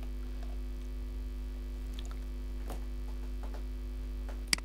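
Steady electrical mains hum on the recording, with a few faint clicks and one sharp click near the end.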